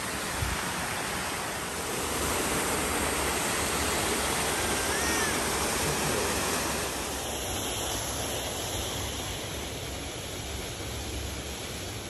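Rushing water from a mountain stream's small waterfalls and cascades in a rocky gorge, a steady rush that grows louder a couple of seconds in and eases slightly later on.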